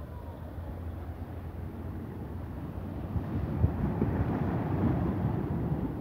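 Sea waves washing against shoreline rocks, swelling about halfway through as a wave breaks into foam, then easing off a little.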